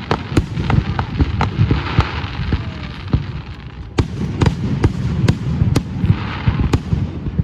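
Aerial fireworks display: a dense run of sharp bangs and pops from bursting shells, several a second, over a continuous low rumble of reports echoing.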